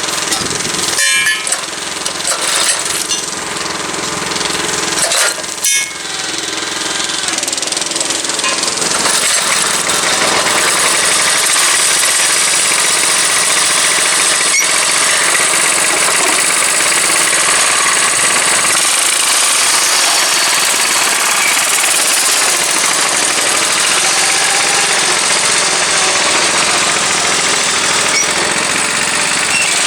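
Lawn tractor's small gasoline engine running on its freshly reinstalled carburetor after long disuse, stumbling twice in the first six seconds, then settling into a steady, rattly run that grows louder over the first ten seconds.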